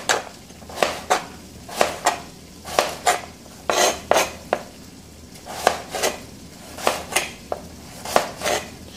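Kitchen knife slicing carrot into half-moon pieces, the blade knocking sharply on the cutting board about twice a second in an uneven rhythm.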